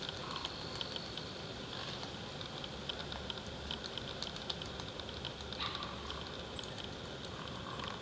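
Downy woodpecker pecking at bark while foraging: quick, irregular light taps.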